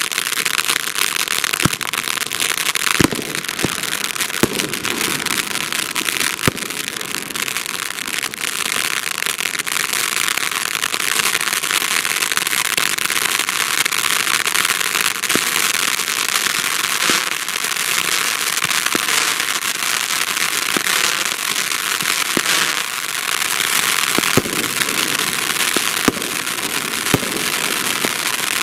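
Fountain firework burning: a steady hiss of spraying sparks, with scattered sharp pops and crackles.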